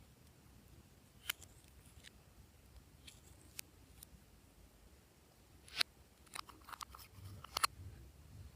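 Glossy slime being handled, giving off scattered sharp sticky clicks and small pops, sparse at first and coming closer together in the last few seconds.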